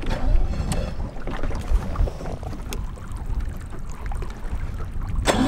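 Wind buffeting the microphone on a bass boat: an uneven low rumble with a few sharp knocks.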